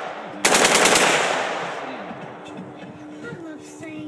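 A short burst of fully automatic gunfire, several rapid shots in about half a second with the trigger held down, starting about half a second in. The echo dies away over the next couple of seconds.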